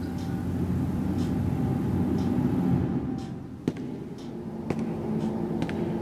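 Indoor room tone: a steady low hum and rumble with faint occasional clicks. About three seconds in it changes to a different room ambience, with a few sharper ticks.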